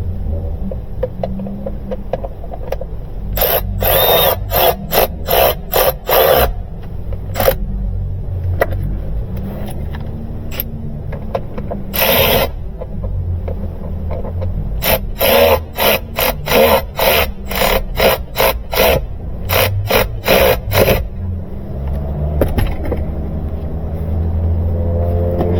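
Hand tools working, with several runs of quick, sharp clicks and scraping over a steady low hum.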